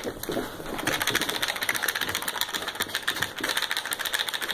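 Plastic toy cement truck clicking and rattling rapidly as a Yorkshire terrier plays with it, a dense, even run of fast ticks that starts about a second in.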